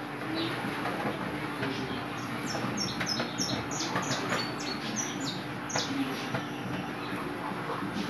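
Popcorn popping in a pan, scattered sharp pops, with a small bird's rapid high falling chirps, about three a second, from about two and a half to six seconds in.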